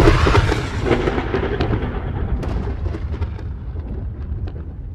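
Thunderclap sound effect: a loud crack that rolls into a long rumble and slowly fades, with scattered sharp crackles through it.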